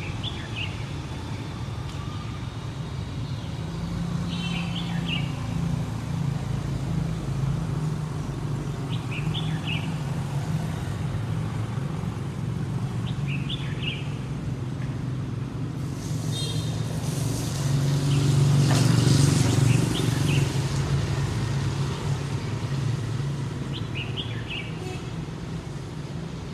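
City street ambience: a steady low rumble of traffic, with a bird giving short chirping calls about every four seconds. A louder vehicle passes about two-thirds of the way through.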